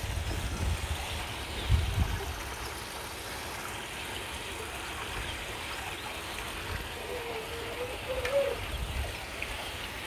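Koi pond water circulating: a steady trickle and gurgle of water running into the pond, with low rumbles near the start and again near the end.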